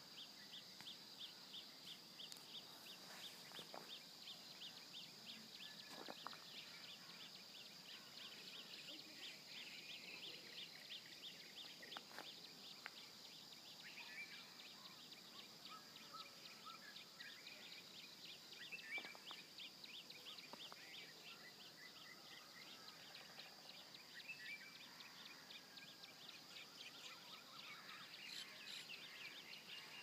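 Faint rural ambience of birds: scattered short chirps and calls over a steady, high, rapidly pulsing trill that runs almost throughout.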